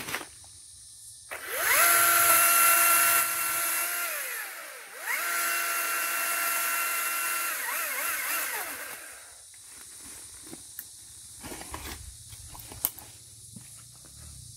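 Powered pole saw running in two bursts of a few seconds each. Each burst spins up with a rising whine, runs at a steady pitch while cutting a branch, then winds down. A few faint knocks and rustles follow.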